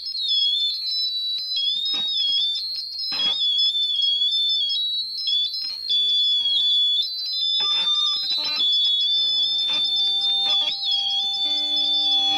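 Intro of an indie rock song: a loud, high, piercing tone that wavers and steps in pitch like an alarm, with quieter low held notes and a few knocks underneath, and a steadier middle note joining near the end.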